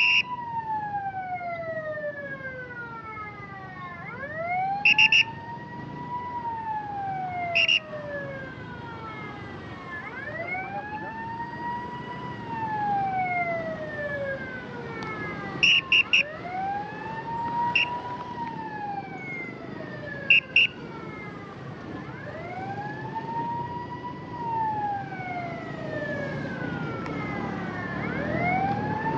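Ambulance siren in a slow wail. The tone rises quickly and then falls away, repeating about every six seconds. Several short horn beeps sound in between, over a steady traffic rumble.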